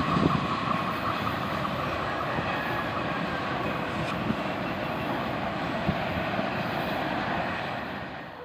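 Freight train of autorack cars rolling past: steady wheel-and-rail rumble with a thin squeal that is strongest at first, and a couple of faint clicks. It fades out at the end.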